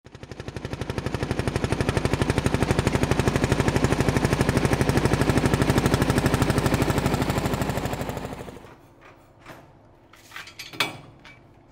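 1948 Lanz Bulldog's single-cylinder hot-bulb two-stroke engine running with a fast, even thudding beat that fades in and then fades out. Then come a few light metal clicks and one sharper knock near the end, from handling at the side of the tractor.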